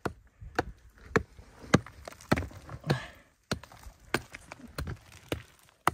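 Rock pick striking a chalky clay wall over and over, about one blow every half second, breaking into the clay.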